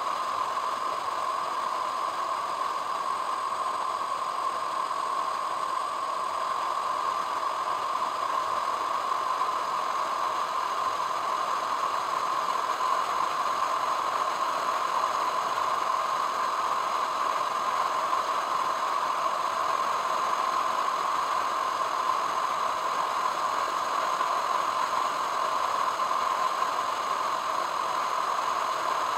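A car driving at a steady speed on a paved road: an even, unchanging drone of road and engine noise.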